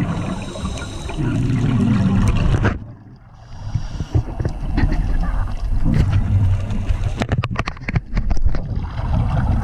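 Muffled underwater sound heard through a camera's waterproof housing: a scuba diver's regulator breathing and exhaled bubbles rumbling and gurgling, with a brief lull about three seconds in and a quick run of clicks near the end.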